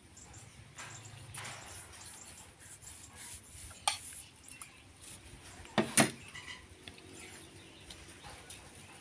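A spoon and shells clinking against a plate during eating: two sharp clicks, about four and six seconds in, the second the loudest, among faint scrapes and handling.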